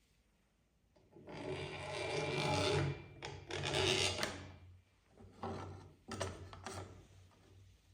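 Abrasive rubbing on wood in strokes: two long strokes, then a few shorter ones.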